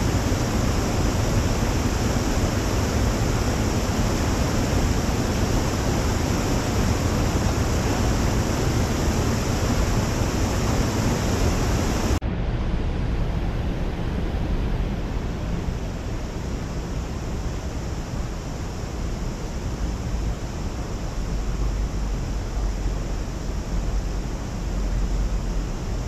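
Steady rushing of water from the Ras el Ma mountain spring flowing into the Fouara river. About halfway through it suddenly turns duller.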